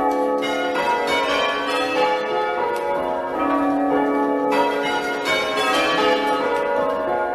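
A ring of six church bells rung full circle in sequence, one stroke after another at a steady pace, each bell's tone ringing on under the next.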